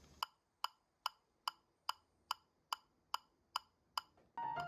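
Quartz metronome clicking steadily, about two and a half clicks a second, ten clicks in all. Piano playing comes in near the end.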